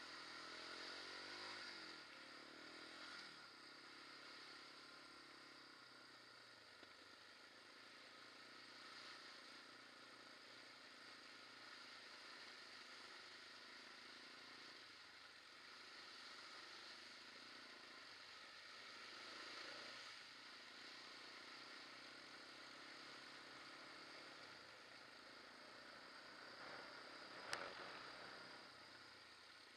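Quad bike engine running, heard faintly; its note drops about two seconds in as it eases off, then runs on steadily. A single sharp click comes near the end.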